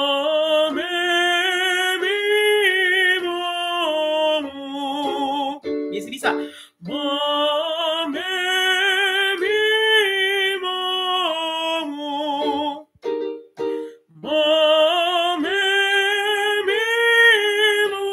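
A trained male voice sings a vocal warm-up exercise: three phrases, each a stepped scale up and back down, held with vibrato. Short steady accompaniment chords sound between the phrases, setting the next step of the exercise.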